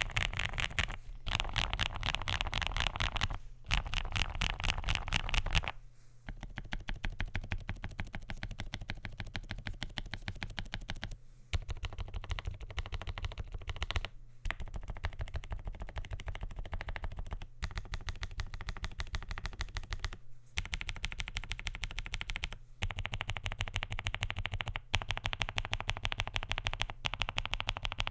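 Fast continuous typing on a Marvo ColorReco S75 low-profile mechanical keyboard with lubed Kailh Low Profile White Peach tactile switches, PBT doubleshot keycaps and a polycarbonate plate: a dense run of key clicks with a few brief pauses. The typing is louder in the first six seconds and again in the last few seconds than in the middle.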